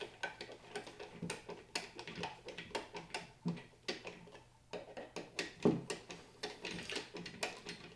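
Light, irregular clicks and taps of small metal door hardware being handled and fitted: a decorative strike plate and its short screws going onto the jamb.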